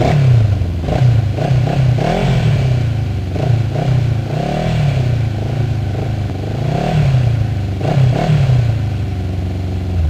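ATV engine revving up and down over and over, its pitch swelling and falling in quick succession; it starts suddenly.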